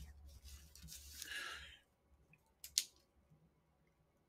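Quiet room with a faint soft rustle about a second in and a single sharp click near three seconds; otherwise close to silence.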